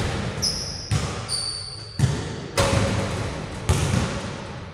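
A basketball bouncing on a gym's court floor, about five hits roughly a second apart, each echoing in the hall. Two short, high squeaks come in the first two seconds.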